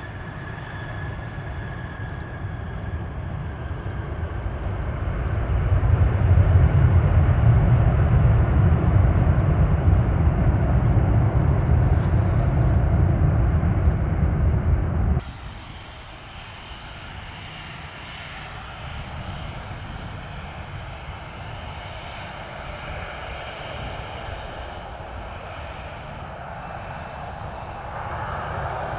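Boeing 737-800 jet engines building to a loud, low rumble as the airliner passes, cut off abruptly about halfway through. Then a second Boeing 737's jet engines with a quieter, steady whine.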